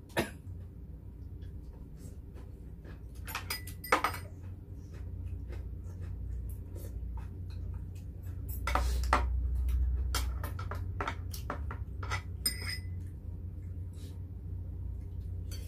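Spoons and chopsticks clinking and tapping against soup pots and dishes during a meal, in scattered separate clicks, with a longer noisy stretch about nine seconds in.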